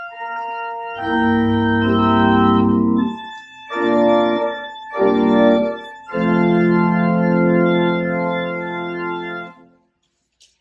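Church pipe organ playing sustained chords: a long chord, two short ones, then a long held final chord that cuts off about a second before the end.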